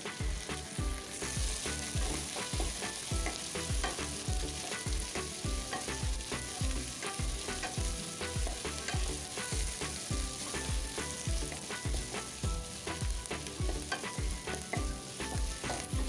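Sliced onions and mixed vegetables sizzling in hot oil in a non-stick kadai while being stir-fried, with repeated scrapes and taps of a wooden spatula against the pan.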